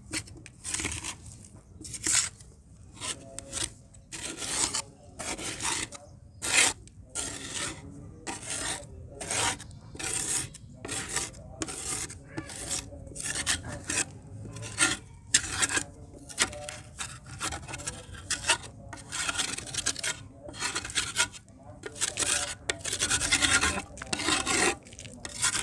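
A flat scraper repeatedly scraping and prying damp clay out of the inside of a terracotta clay pot, a gritty rasp a little more than once a second. The clay was soaked for water crumbling and is being dug loose from the pot wall.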